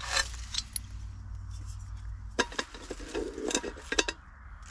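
Camping gas stove and canister being handled: scattered light metallic clinks and knocks, a few sharp clicks, and a brief rustle.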